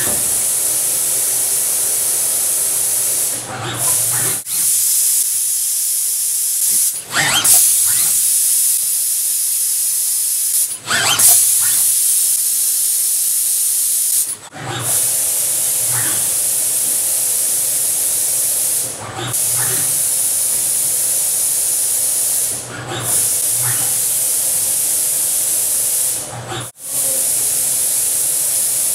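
Automated hard-drive screwdriving robot cell running: a steady, loud hiss, broken every three to five seconds by short dips and brief mechanical sounds as the machine cycles.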